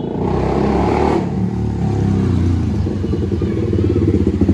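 Honda CBR250R single-cylinder engine through a very loud aftermarket full band pipe exhaust, running and getting louder as the bike comes near. Near the end it turns into a choppy, pulsing beat.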